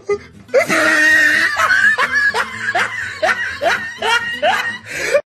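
A person laughing loudly: a run of short, rising 'ha' sounds, about two or three a second, over a hissy background.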